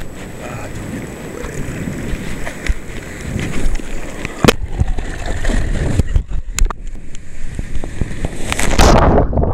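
Surf water sloshing and splashing around a camera held in the waves, with a few sharp knocks. Near the end comes the loudest part, a rush of a wave washing over the camera.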